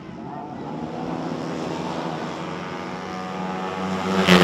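Four-stroke racing scooter engine held at high revs, a steady buzzing note that grows much louder near the end as the scooter closes in.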